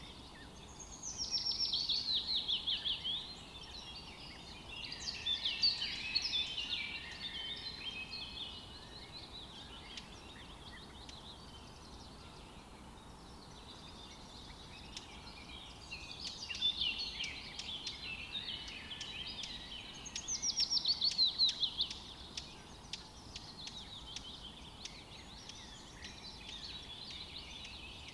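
Songbirds singing: bursts of quick high chirps and fast down-slurred trills, loudest about a second in and again about twenty seconds in, with quieter twittering in between.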